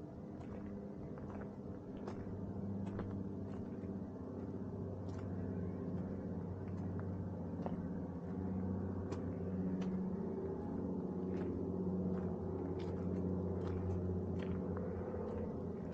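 Footsteps crunching on a gravel trail, landing unevenly about once a second, over a low steady drone that grows louder.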